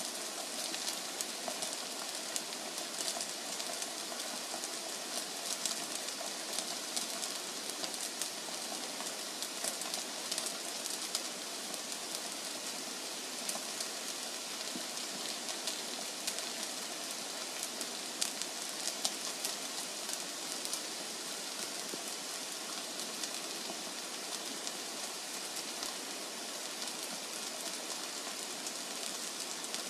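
Steady hissing with light, irregular crackles from the hot chamber of a wood-fired brick bread oven.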